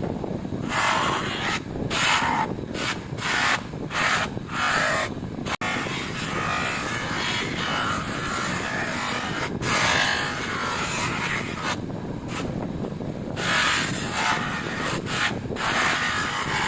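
Abrasive hand-rubbing strokes on a metal motorcycle footpeg, polishing it by hand. About two short back-and-forth strokes a second at first, then a longer stretch of continuous rubbing, then quick strokes again, over a steady low rumble.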